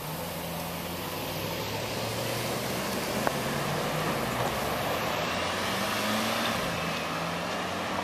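City street traffic noise: a steady low engine hum over a hiss of road noise, slowly growing louder, with a single short click about three seconds in.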